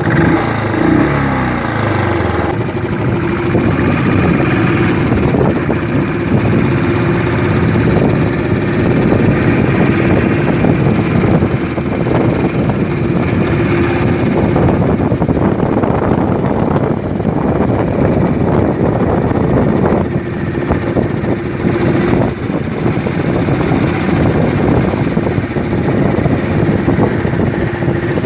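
Royal Enfield Classic 500's single-cylinder engine running. The pitch falls over the first couple of seconds as the revs drop, then the engine runs steadily.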